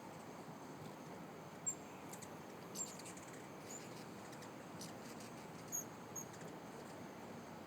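Hummingbirds at feeders giving short, high, scattered chirps and ticks over a steady background hiss.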